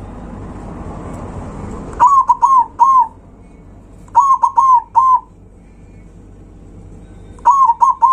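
Zebra dove (perkutut) cooing: three quick phrases of three or four clipped, bouncing notes each, spaced a couple of seconds apart. A low steady rumble comes before the first phrase.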